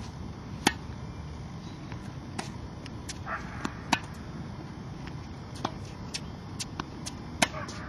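Tennis balls struck by rackets in a rally on a hard court: sharp pops about every one and a half to two seconds, the loudest from the near player about every three and a half seconds, with quieter hits from the far end and ball bounces between.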